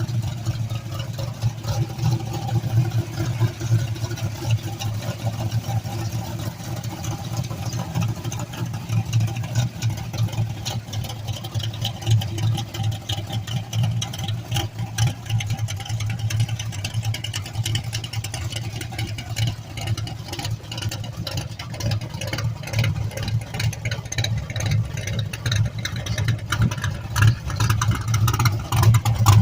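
An old car's engine idling with a steady, pulsing exhaust note, getting somewhat louder in the last few seconds.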